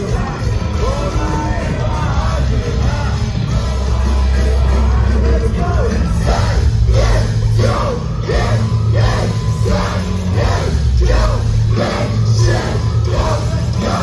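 Live rock band playing loud, heavy in the bass, with a vocalist, heard from inside the crowd. From about six seconds in, short shouted vocal bursts come in a steady rhythm about twice a second.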